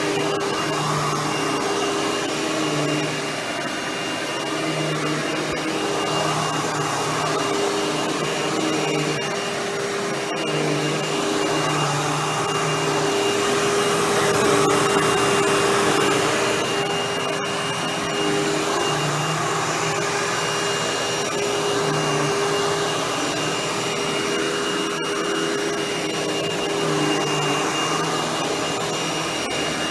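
Hoover WindTunnel Anniversary Edition bagless upright vacuum cleaner running steadily while vacuuming, a whine over a rush of air. A lower hum comes and goes every second or two.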